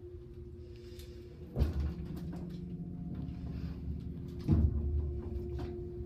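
Elevator cab running between floors: a steady low hum from the drive machinery, broken by two dull thumps about one and a half seconds in and again about four and a half seconds in, the second louder.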